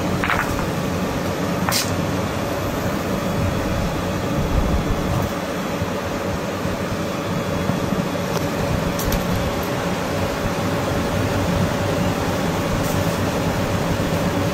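A steady mechanical hum and hiss with a faint held tone, broken by a few sharp clicks of river rocks being lifted and knocked together by hand.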